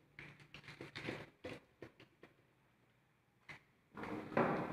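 A cloth duster rubbing across a whiteboard in a quick series of short, faint strokes, then a louder rustling noise near the end.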